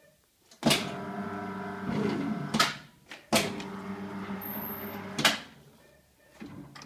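Electric blade drive of an IDEAL 4810-95 paper guillotine running twice, each run lasting about two seconds. Each run starts and stops with a sharp mechanical clunk, and the motor hums steadily in between, with a falling tone near the end of the first run.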